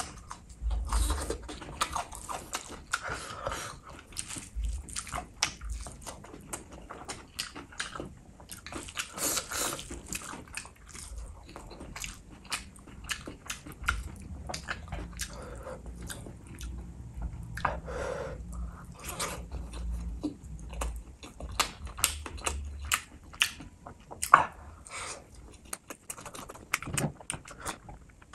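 Close-miked chewing and biting: a person eating green king chilli and chicken in gravy, with many irregular sharp clicks and short crunches.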